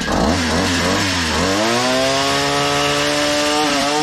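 Two-stroke petrol engine of an Einhell garden multi-tool driving its Oregon chainsaw bar and chain: running at low speed, it revs up about a second and a half in, holds high revs, then drops back near the end.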